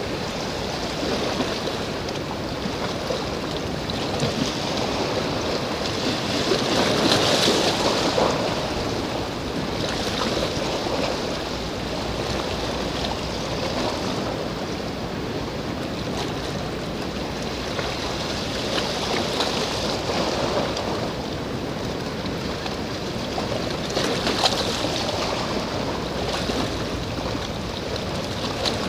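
Sea and wind at the shore: a steady rush of water and wind that swells a few times, about a quarter of the way in and again near the end.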